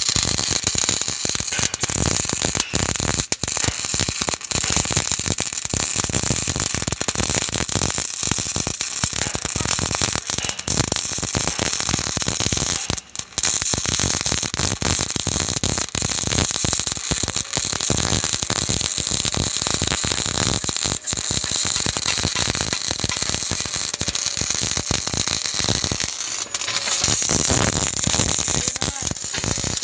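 Electric arc welding on a steel frame: the arc crackles and sizzles steadily, with a brief break about 13 seconds in before the arc is struck again.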